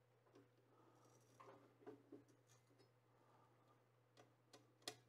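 Near silence with a few faint clicks and taps of a spool holder and its fittings being handled against the 3D printer's metal frame. The sharpest click comes near the end, over a low steady hum.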